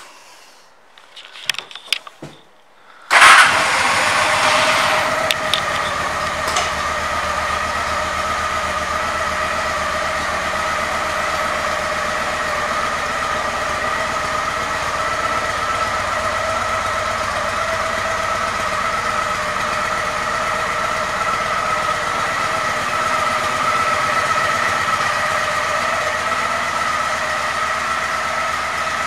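2002 Honda Shadow 750's V-twin engine starting about three seconds in, then idling steadily.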